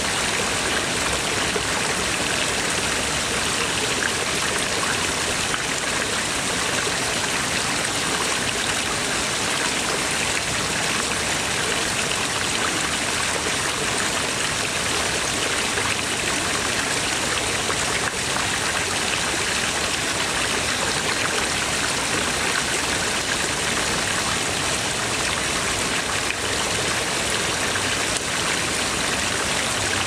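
Water jets from a row of stone dragon-head spouts splash steadily into a pond, a continuous even rush of falling water.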